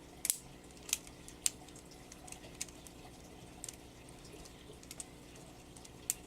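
LEGO butterfly knife being flipped and spun in the hand: its plastic handles and blade click and clack against each other in a few sharp, irregularly spaced clicks.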